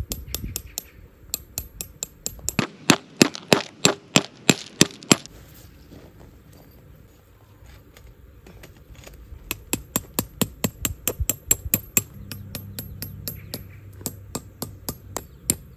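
Tent pegs being hammered into the ground: sharp metallic strikes several a second, in two runs with a short pause between them.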